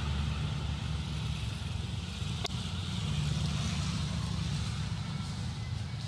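Steady low rumble of background noise, with a single sharp click about two and a half seconds in.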